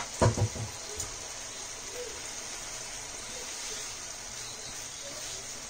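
Chicken and masala in a pan, frying with a steady sizzle, with a few knocks of the stirring utensil against the pan about half a second in.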